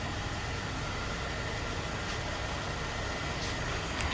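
Steady hum of running machine-shop machinery, with a single short click near the end.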